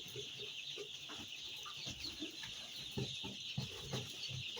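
A brood of week-old chicks cheeping continuously as a dense, high-pitched chorus, with scattered short low sounds underneath.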